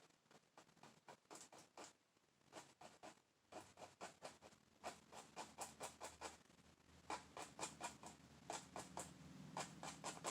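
Faint, quick strokes of a paintbrush dabbing and scratching oil paint onto canvas, several a second, growing busier and a little louder partway through, with a faint low hum under them.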